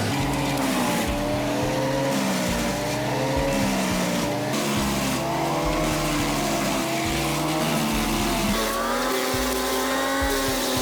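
Wood chipper engine running under load, its pitch dipping and recovering again and again as wood is fed, then settling at a steadier, higher pitch near the end.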